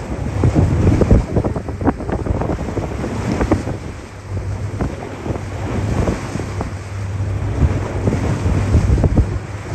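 Wind buffeting the microphone over choppy open water, in uneven gusts, with a low steady engine drone underneath and some water splashing.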